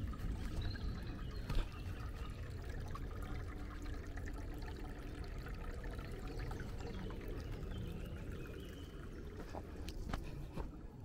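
Water trickling steadily from a small stone-walled forest spring, with a few faint bird chirps above it.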